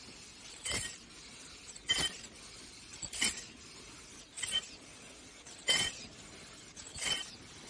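KN95 mask-making machine running its production cycle: a short, sharp clack with a brief high ring repeats about every 1.25 seconds, six times, over a faint steady machine background.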